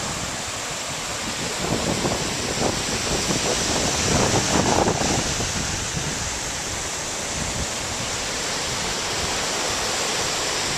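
Ocean surf, foaming seawater washing over shallow sand: a steady hiss that swells briefly about four seconds in.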